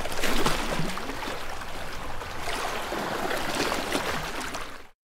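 Rushing water sound effect, an even wash of noise that cuts off suddenly near the end.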